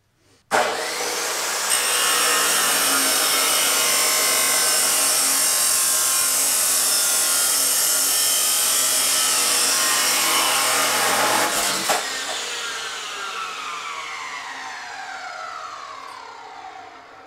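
Abrasive chop saw starting up and cutting through 3-inch mild steel exhaust pipe, a loud steady grinding for about eleven seconds. Near the end the motor is switched off and the wheel spins down with a falling whine.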